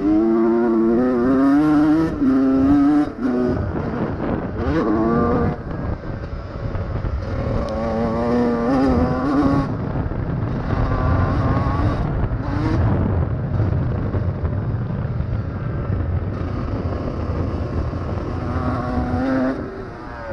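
2001 Honda CR125R two-stroke single-cylinder motocross engine, the throttle repeatedly opened and shut so the engine note climbs and drops over and over. In a stretch of about five seconds past the middle, the clear engine note gives way to a rougher, more even noise, then the climbing note returns near the end.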